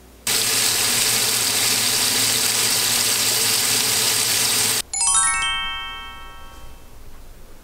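Thin-sliced beef brisket sizzling loudly in a frying pan, cut off abruptly after about four and a half seconds. Then a bright chime sound effect of notes stepping downward rings out and fades.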